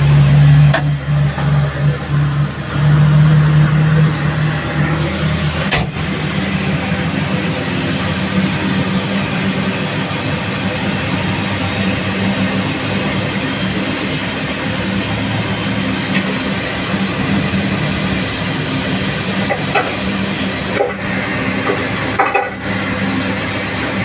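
Aircraft pushback tug's engine heard from inside its cab, working harder for the first few seconds as it pushes the airliner, then running steadily at idle once the tug has stopped.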